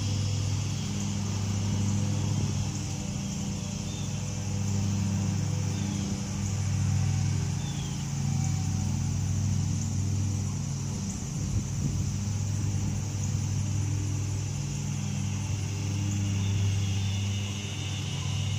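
A low, steady engine-like hum that swells and fades every few seconds, with a steady high-pitched hiss above it.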